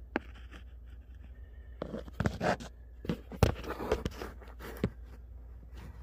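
Handling noise from a phone camera being moved around and rubbed: a click at the start, then a run of short scrapes and knocks from about two to five seconds in, over a low steady hum.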